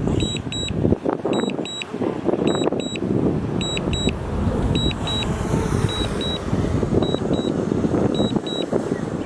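Heavy earthmoving machinery's diesel engine running, with a reversing alarm giving high double beeps about once a second: a machine is backing up.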